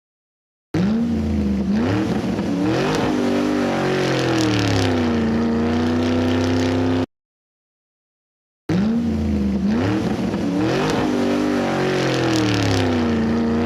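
Engine sound effect, a motor vehicle revving up and then settling to a steady run, about six seconds long. It is played twice in identical form, each time starting and cutting off abruptly, with a couple of seconds of dead silence between.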